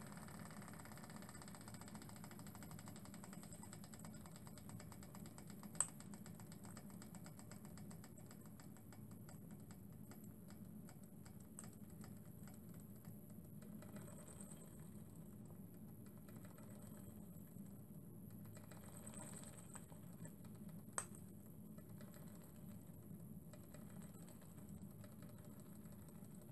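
Small model horizontal mill steam engine running slowly as it winds down, giving a faint, rapid clicking from its piston and valve gear. There are two sharper clicks, one about six seconds in and one about twenty-one seconds in.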